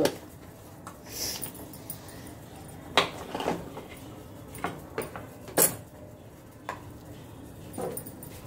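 Scattered light clicks and knocks of small spice containers and kitchen utensils being picked up and set down on a counter, the sharpest a few seconds in and again about halfway through.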